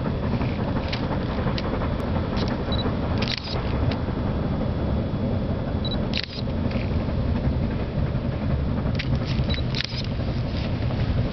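Distant China Railways SY-class 2-8-2 steam locomotive working a freight train with a hard exhaust, heard as a steady low rumble. A few faint clicks sound over it.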